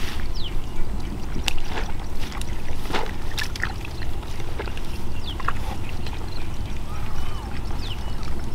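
Many short, high animal calls, like birds or poultry, with a few sharp knocks, over a steady low rumble.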